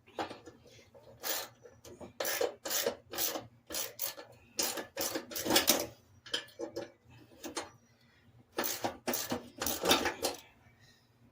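Irregular scraping or rubbing strokes on a hard surface, about fifteen in quick succession with short pauses between them, some louder than others.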